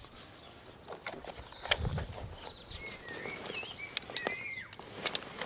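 Handling noise from a scuba BCD (buoyancy jacket): scattered clicks and knocks of its buckles and straps, with a dull thump about two seconds in. A bird sings a short wavering phrase in the background in the second half.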